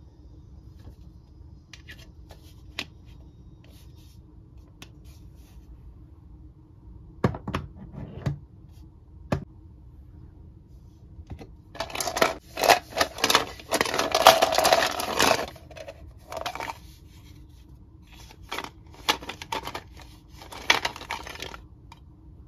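Plastic Mr. Potato Head toy parts being handled: scattered clicks and taps, then a dense rattle and clatter of plastic pieces for about three and a half seconds, and a few more bursts of clicking near the end.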